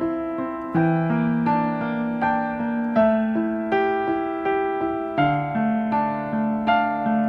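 Calm background music on piano or electric piano: gentle notes struck one after another at an unhurried pace over held bass notes.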